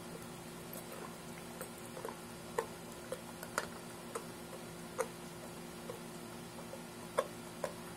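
Mastiff puppy chewing a raw tilapia: irregular sharp crunches and clicks of teeth on the fish, roughly once a second, over a steady low hum.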